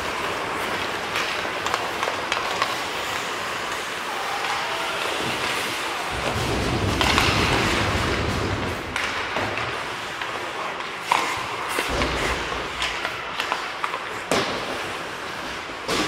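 Ice hockey play on a rink: a steady wash of skates on ice, broken by sharp clacks and knocks of sticks, puck and boards, the loudest about 11 and 14 seconds in.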